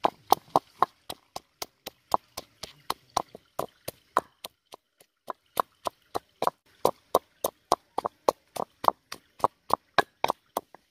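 Knife chopping rapidly on a cutting board, a steady run of sharp knocks at about four a second that stops a little before the end.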